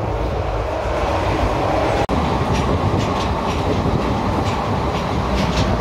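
Running noise inside a moving ICF passenger coach: a steady rumble with repeated clicks and clatter of the wheels over the rails, with a brief break about two seconds in.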